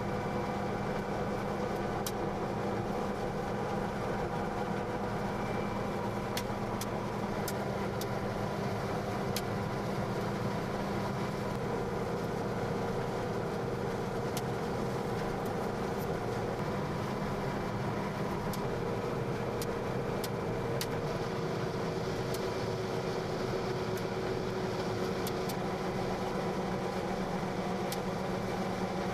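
John Deere combine running steadily while harvesting soybeans: a constant engine and machinery drone with several steady hums, and a few scattered sharp ticks.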